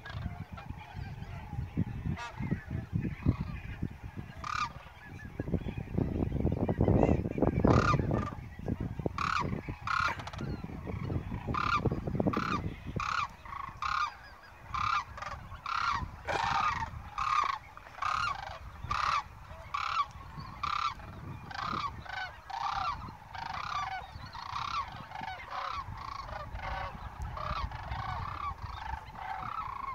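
A flock of geese flying overhead, honking over and over; the calls become steady and frequent after the first several seconds. A low rumble underlies the first half.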